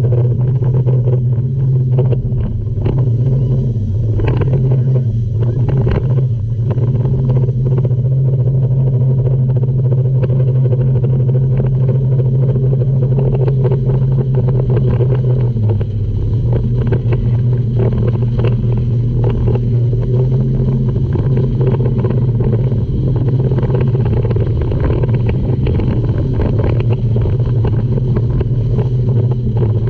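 Tour speedboat's outboard motors running at speed, a steady low drone that dips slightly in pitch about halfway through, with water rushing and splashing along the hull.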